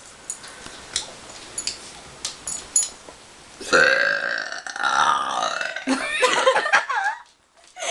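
A person's long, loud burp, pitched and drawn out for nearly two seconds, starting about halfway through, with a few shorter throaty sounds after it.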